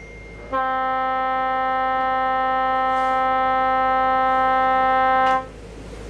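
The trawler yacht's foghorn sounds one long blast of about five seconds, a single steady tone that starts and stops sharply. It is the prolonged fog signal of a power-driven vessel under way in poor visibility.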